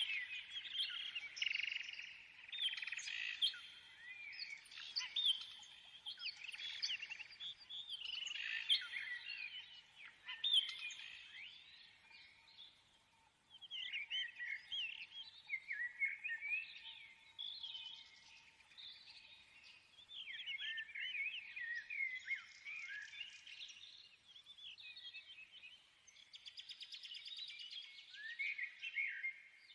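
Small birds chirping and singing, many quick overlapping chirps and warbling trills, with a brief lull about halfway through.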